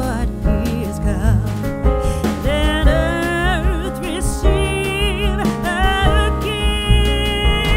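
Background music: a song with a vibrato-laden vocal or lead melody over bass and a steady beat.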